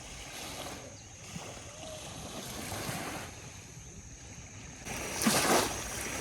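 Sea water washing with wind noise, rising and falling in swells, then a louder splash of water about five seconds in.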